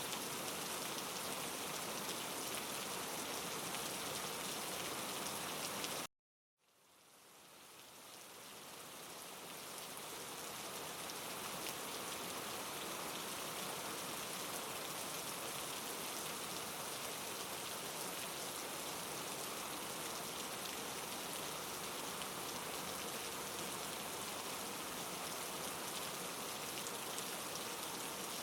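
Steady rainfall ambience, the even hiss of rain on a surface. About six seconds in it cuts out completely for a moment, then fades back in over several seconds, as a looped ambience track restarting would.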